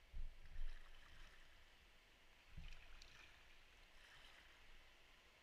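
Faint steady rushing of river water over a shallow riffle, heard from a kayak, with three short low thumps: two close together near the start and one about two and a half seconds in.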